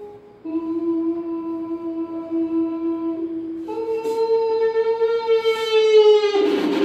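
A man imitating a train horn with his voice into a microphone: two long held notes, the second higher than the first. Near the end it breaks into a loud rushing hiss, his imitation of the train getting under way.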